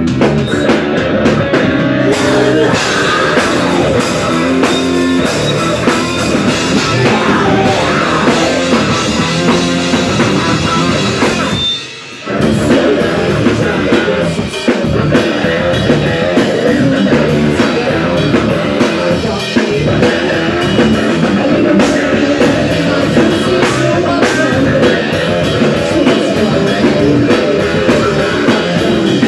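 Live rock band playing: a woman singing lead over electric guitars, bass guitar and drum kit, loud and continuous apart from a short break about twelve seconds in.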